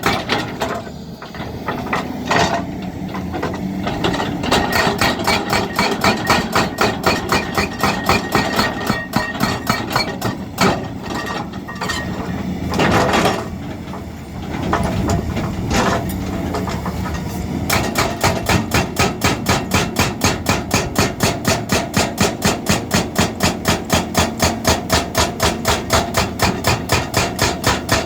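Repeated hammer blows, uneven at first, then settling about two-thirds of the way through into a fast, steady rhythm of about three strikes a second.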